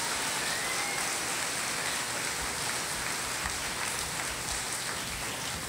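A large seated audience applauding steadily, easing off slightly toward the end.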